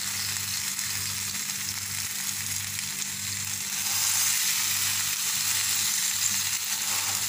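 A marinated chicken piece sizzling in oil and cooked-down marinade on a tawa over a low flame, near the end of its cooking. The sizzle grows a little louder about halfway through as a slotted spatula presses the piece down against the pan.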